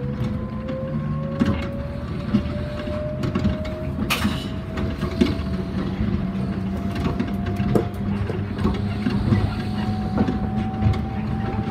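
Rubber-tyred people-mover car running along its concrete guideway, heard from the driver's cab: a motor whine rising slowly in pitch as it gathers speed, over a steady low rumble with scattered knocks. One sharp clack comes about four seconds in.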